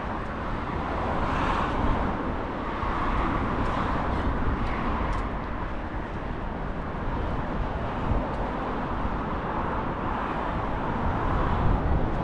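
City street traffic noise, a steady rumble and hiss of vehicles going by.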